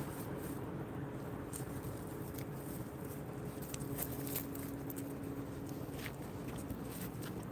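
Scattered light ticks and taps over a steady two-tone hum.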